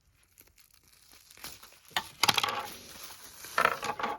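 Packaging being crinkled and torn open by hand, in three irregular bursts after a quiet start, the loudest a little past halfway.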